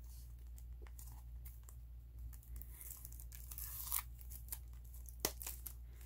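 Plastic shrink wrap on a boxed CD album crinkling and tearing in short, faint rustles as the album is handled, with a louder rasp about four seconds in and a sharp click just after five.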